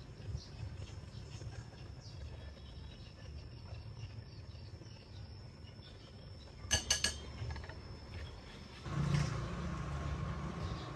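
A utensil clinks against a small bowl in a quick run of three or four strikes about seven seconds in, over a faint steady high whine and a low outdoor rumble. Near the end the background changes to a steadier hum.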